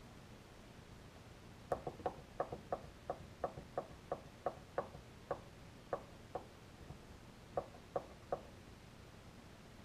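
T-Motor MT2212 1100 kV brushless drone motor clicking as it turns, about three sharp clicks a second, spacing out and then three more. The owner takes the clicking for bad bearings.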